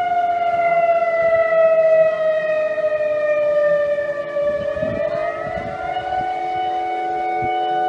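Tsunami warning siren sounding continuously, several tones at once. Its main pitch sags slowly and climbs back about five to six seconds in.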